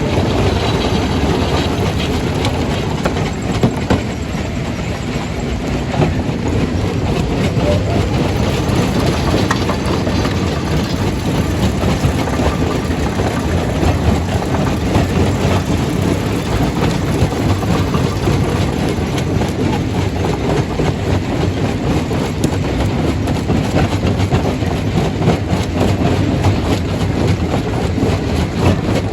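Jaw crusher crushing rock: a steady loud rattling, grinding din, full of many small knocks and clatters of stone.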